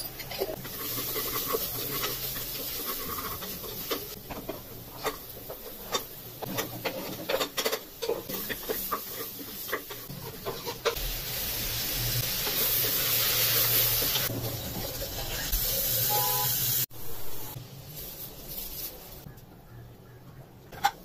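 A spoon scraping and knocking against the inside of an aluminium pressure-cooker pot while vegetables and spices are stirred, with a sizzling hiss that grows louder in the middle and stops abruptly. After that, quieter stirring of a watery mix.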